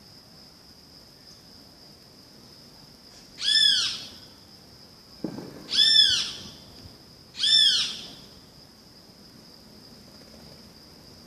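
Great kiskadee (bem-te-vi) giving three loud single calls about two seconds apart, each a drawn-out note that rises and falls. A steady high insect hum runs underneath, and a brief low thump comes just before the second call.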